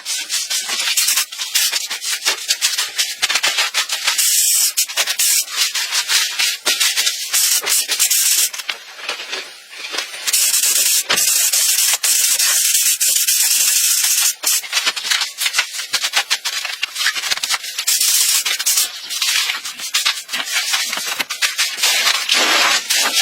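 Hand sanding or abrasive scrubbing of a surface: rapid, irregular rubbing strokes that run on with a brief pause about nine seconds in.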